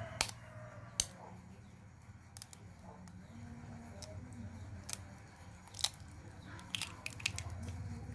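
An egg being tapped and its shell cracked open over a bowl: a string of sharp clicks and cracks, the loudest about a second in, with a quick cluster near the end as the shell is broken apart.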